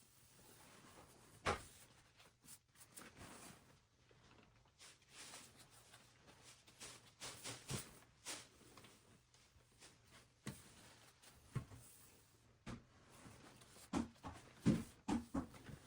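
Quiet indoor room with scattered light clicks and knocks, and a cluster of louder knocks near the end.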